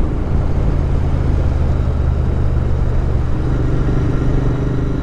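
Royal Enfield Interceptor 650's parallel-twin engine running steadily under way, heard from the rider's helmet camera over an even rush of wind and road noise.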